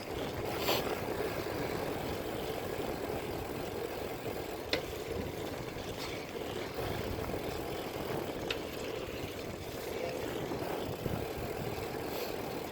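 A vehicle engine running steadily at idle, with a few brief clicks.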